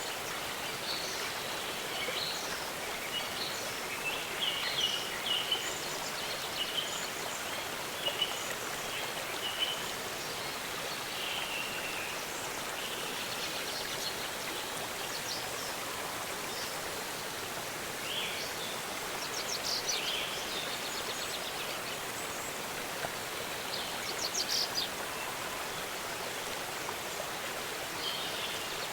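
Steady rush of a waterfall, with small birds chirping over it on and off, including quick trills about twenty and twenty-five seconds in.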